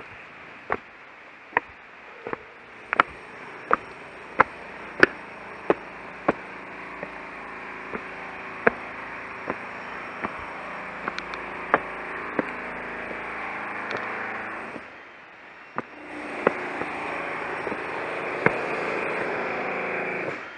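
Footsteps climbing stone steps, sharp regular clicks about one and a half a second, over a steady rushing noise that grows louder, dips out briefly about three-quarters through, then returns and cuts off suddenly at the end.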